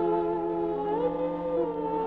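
Background music of sustained, held chords; the chord shifts about a second in with a slight upward glide.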